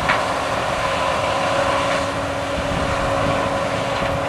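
Combine harvester running steadily while harvesting standing corn: a constant machine drone with a held whine over it. There is a short click just after the start.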